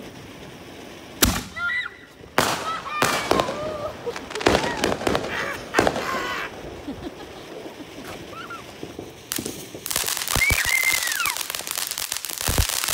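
Consumer fireworks going off: several sharp bangs and pops in the first few seconds, then dense rapid crackling from about ten seconds in, while a ground fountain sprays sparks.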